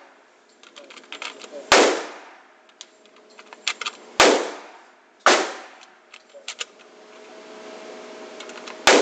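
Four single gunshots at an indoor range, unevenly spaced, each ringing out in a long echo off the walls. Between them come small metallic clicks of cartridges being pressed into an AK-47 magazine.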